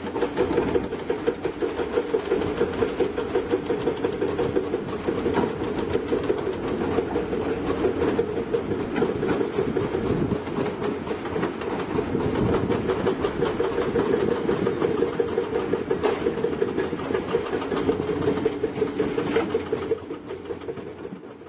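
Heavy construction machine's diesel engine running steadily with a fast pulsing beat, fading away near the end.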